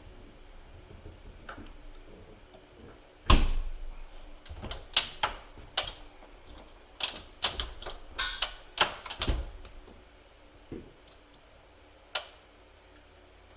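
An irregular run of sharp clicks and knocks, about a dozen in six seconds, then one more near the end: hard parts or tools being handled and set down.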